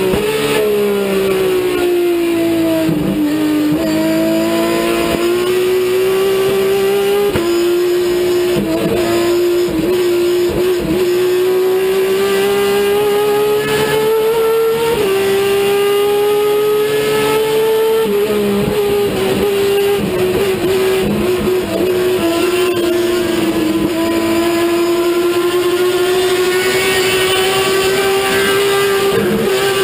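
TC Mouras race car's engine heard from inside the cockpit, running hard at high revs. Its pitch climbs slowly and jumps abruptly several times as it shifts gear.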